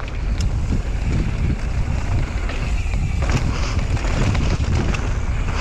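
Wind buffeting a GoPro's microphone on a mountain bike riding fast down a dirt trail, a heavy steady rumble, with tyres crunching over dirt and small rattles and clicks from the bike, and a short burst of gravelly tyre hiss a little past halfway.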